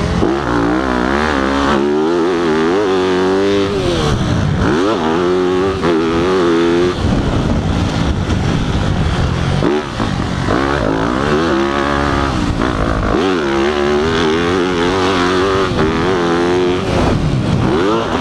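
Dirt bike engine heard from on board, its pitch climbing and dropping again and again as the rider works the throttle and shifts on a motocross track, with a brief drop in level about ten seconds in.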